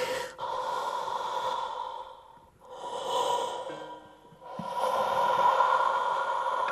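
Breathy held notes from the soundtrack of Tibetan music, one steady pitch with its octave and a lot of breath noise, swelling three times with short dips between.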